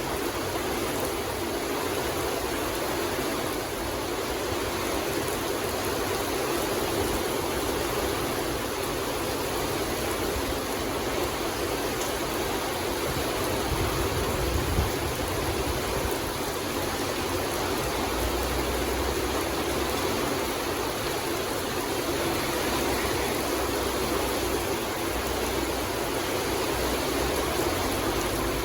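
Steady rain falling in a forest: an even, unbroken hiss. A low rumble comes and goes underneath in the second half.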